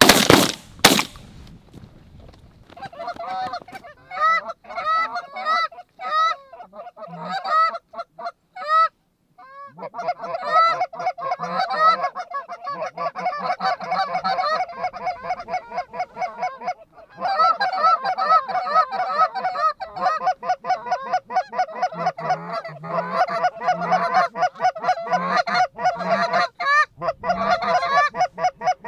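Two shotgun shots in quick succession right at the start. Then many geese honking and clucking in rapid, overlapping runs, sparse at first and nearly continuous from about ten seconds in.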